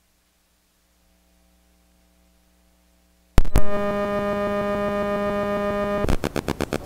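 Near silence for about three seconds, then two sharp clicks and a loud, steady electrical mains hum with a buzzy stack of overtones in the audio line. About six seconds in, the hum breaks into a rapid pulsing stutter.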